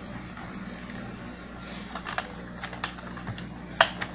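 Light plastic clicks and taps as a thin plastic tube is pulled out of the clips on a refrigerator's plastic thermostat housing, with one sharper click near the end. A faint steady hum runs underneath.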